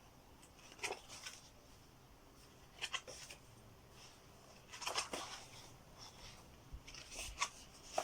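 Faint, intermittent rustling and light taps of paper and cardboard being handled: record sleeves and book pages from a vinyl box set. About five short strokes, the loudest cluster around the middle.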